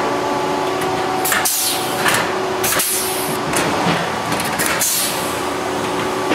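Pneumatic blind-rivet pullers setting rivets through the aluminium ribs and spar: a series of short, sharp hissing snaps, about eight of them, each one a rivet being pulled and its mandrel breaking off. Underneath runs a steady hum.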